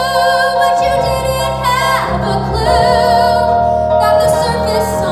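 A woman singing solo into a microphone over instrumental accompaniment, sustaining long notes with vibrato.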